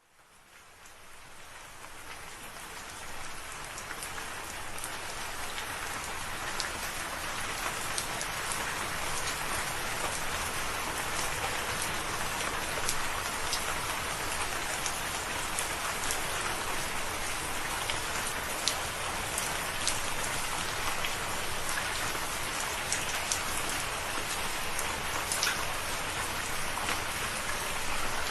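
Steady rain falling, fading in from silence over the first few seconds, with many separate sharp drop ticks over an even hiss.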